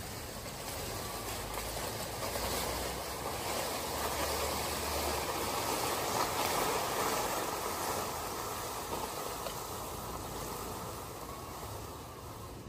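A cut banana plant, stalk and large leaves, dragged across dry grass and dirt: a continuous rustling scrape that grows louder as it passes close by about halfway through, then fades away.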